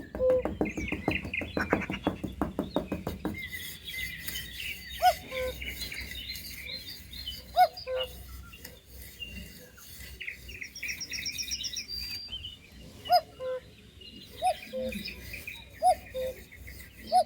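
Small birds chirping and twittering, with short, louder peeps every second or two. The first few seconds hold a quick, dense run of ticking chirps.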